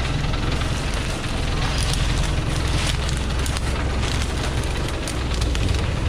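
Diesel engine of a Thaco Forland FC950 4WD truck running steadily as the truck moves slowly at close range, with dry twigs and leaves crackling under its tyres.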